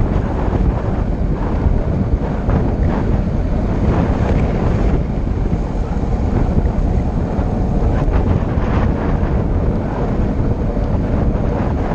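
Loud, steady wind noise battering the microphone while moving fast downhill.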